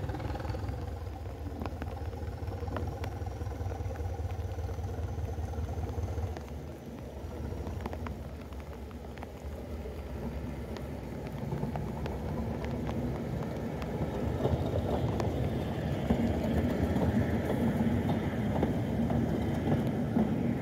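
Class 207 'Thumper' diesel-electric multiple unit running past, its English Electric four-cylinder diesel engine giving a steady low throb. The throb eases about six seconds in, then running noise from the wheels and engine grows louder as the unit draws close and passes.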